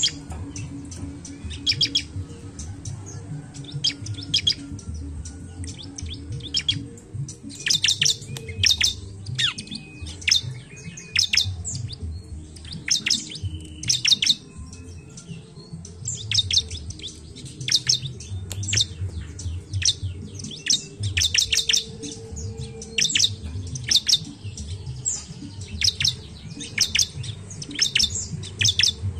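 Bar-winged prinia (ciblek) calling: quick clusters of sharp, high chirps, repeated again and again, over a low background rumble.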